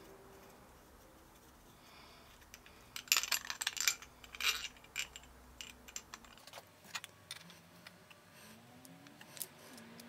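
Clamp parts handled and fitted together: a metal bolt, nut and wooden star knob clinking and rattling. A dense run of clicks comes about three seconds in, then single clicks follow now and then.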